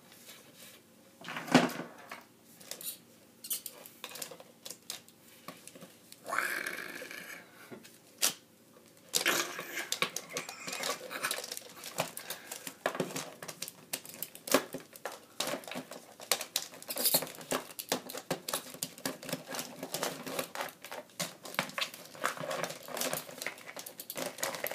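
Plastic action figures knocking and clattering against each other and on a tabletop as they are pushed through a mock fight, with a rough growl about six seconds in and denser rattling from about nine seconds on.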